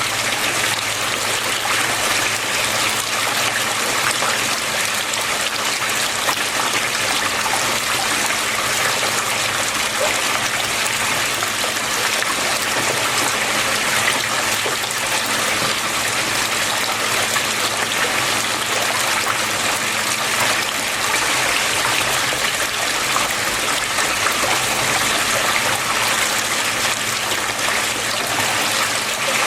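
Water flowing steadily: an even, continuous trickling rush with no breaks or changes.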